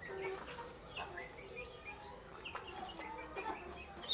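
A flock of young chickens peeping and clucking as they feed, many short calls overlapping, high peeps mixed with lower clucks.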